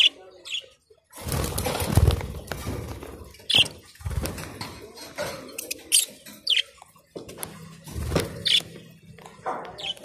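Caged budgerigars and lovebirds flapping their wings in several short bouts as they fly and land on perches, with a few short, sharp high chirps in between.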